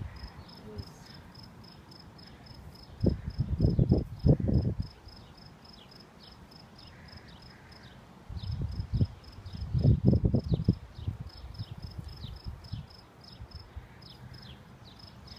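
An insect chirping steadily in the grass, short high chirps about four a second with a few brief pauses. Twice the chirping is overlaid by a spell of loud low rumbling noise.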